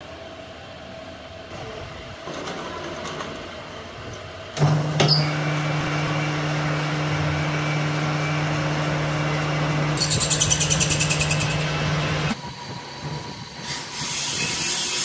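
Metal lathe switched on with a click about four and a half seconds in, then running with a steady low hum while turning a brass bar in its chuck. For a couple of seconds a fast pulsing hiss rides on the hum as the tool works the brass. The machine then stops abruptly, leaving light handling noise.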